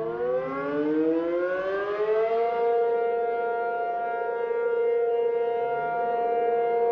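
Outdoor warning siren winding up, its pitch rising for about two seconds before it settles into a steady, sustained wail. In a tornado video this is a tornado warning siren sounding the alarm.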